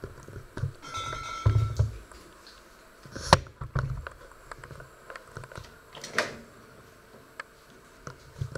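Handling noises in a small tiled kitchen: low thumps and a short squeak in the first two seconds, then a sharp click about three seconds in and another a little past six seconds, with a few light ticks between.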